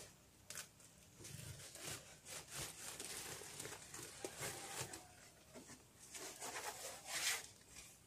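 Irregular rustling and scraping with light knocks from a wooden beehive and its parts being handled, loudest near the end.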